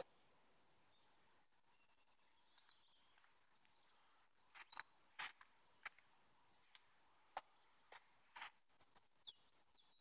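Faint bird calls, a few thin high chirps and short rising notes. From about halfway through, footsteps crunch on dry leaf litter, a light irregular tread about two steps a second, louder than the birds.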